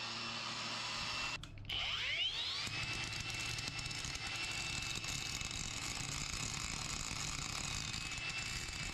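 A faint power tool motor spins up with a rising whine about two seconds in, then runs steadily at an even high pitch.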